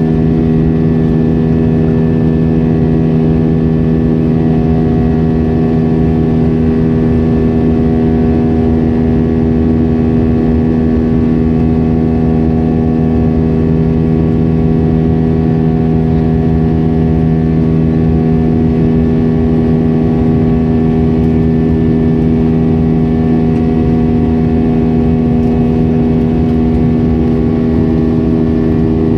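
Cabin noise of an Airbus A320-232 in its climb after takeoff, heard from a seat beside the wing. Its IAE V2500 turbofan engines make a loud, steady drone with several steady hums over a rush of air.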